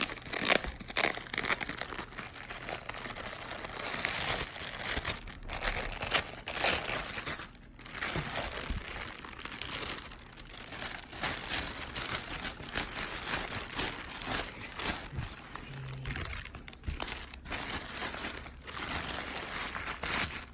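Crinkly packaging being handled and unwrapped by hand, crumpling and rustling in irregular stretches with several short pauses.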